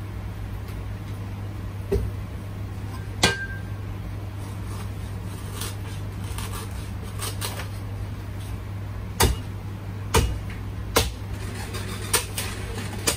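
Sharp knocks and clinks of kitchen utensils and dishes, two in the first few seconds and a cluster of five in the second half, one clink ringing briefly, over a steady low hum.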